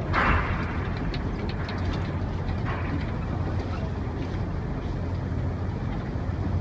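Steady low engine hum heard from inside a bus on a ferry's vehicle deck. A short burst of hiss comes right at the start and a fainter one about three seconds in.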